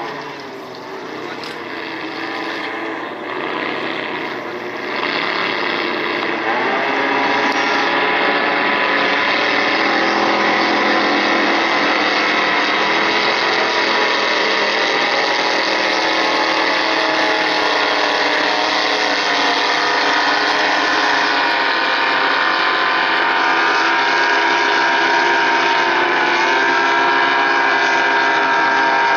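Several racing speedboat engines running hard together, their overlapping engine notes bending slightly in pitch. The sound builds over the first six or seven seconds, then holds steady and loud.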